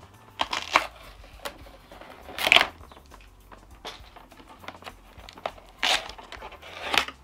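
White plastic panels inside a flatbed scanner's lid being handled and pulled loose: several short bursts of plastic scraping and rustling, the loudest about two and a half seconds in.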